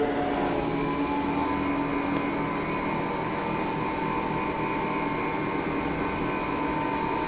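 CNC lathe starting its programmed cycle: the machine's motors come on at the start and run with a steady whine made of several held tones over a hiss.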